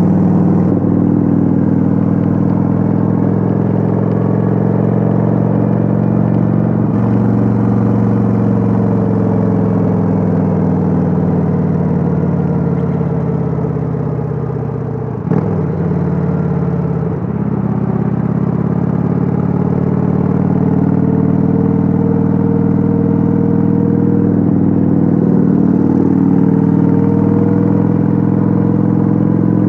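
Kawasaki Vulcan 900's liquid-cooled V-twin engine running steadily under way, recorded on board. About halfway through the engine note drops and quietens as the throttle eases, with a sharp click, then it climbs back up to a steady cruise.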